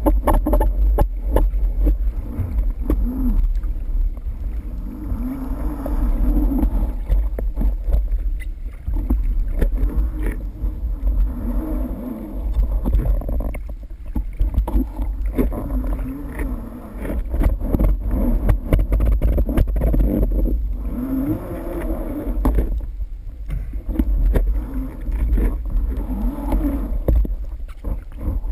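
Muffled underwater rumble picked up through a speargun-mounted camera housing, with a low wavering hum that rises and falls.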